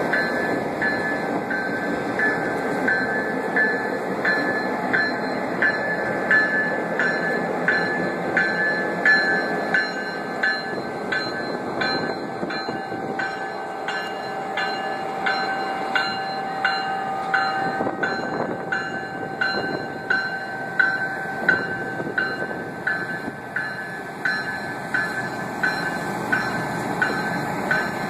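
Diesel locomotives and passenger cars rolling slowly past close by, a steady rumble with wheels clicking over the rail joints. A grade-crossing bell dings steadily about twice a second throughout.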